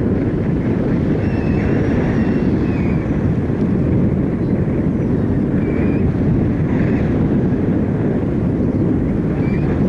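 Wind rushing over the camera microphone of a paraglider in flight: a loud, steady low rush, with a few faint short high chirps now and then.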